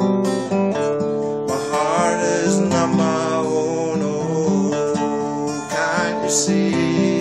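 Acoustic guitar strummed steadily in a chord accompaniment, with a man's voice singing briefly in places over it.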